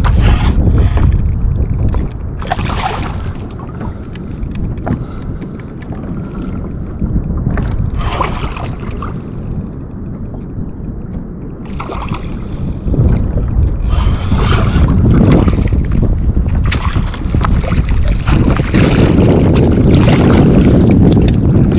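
Wind rumbling and buffeting on the microphone, easing off for several seconds from about two seconds in and building again from about thirteen seconds, with scattered short knocks and clicks of handling gear on the kayak.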